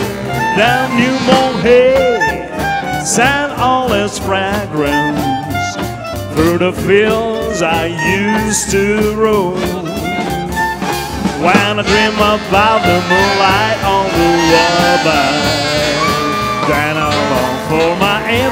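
Live swing band playing, with double bass and guitar under a bending melodic lead line.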